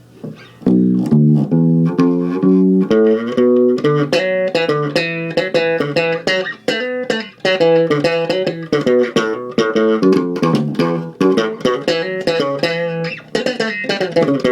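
ESP LTD B-206SM six-string electric bass played through a small 15-watt Crate amp with the bass and mid controls cut and the treble all the way up, so the tone has little deep low end. A quick run of plucked notes starts about a second in and carries on throughout.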